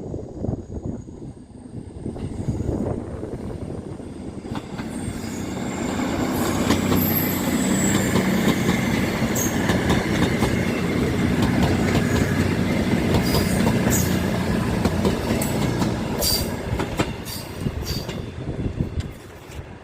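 A train passing, growing louder and then fading, with a brief high wheel squeal and a run of sharp clicks from the wheels over the rail joints.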